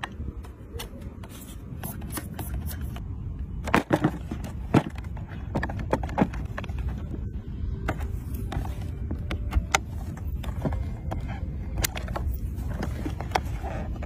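Plastic clicks, taps and knocks from hands handling a toy remote-control car and its pistol-grip transmitter, with a few louder knocks about four to five seconds in, over a steady low rumble.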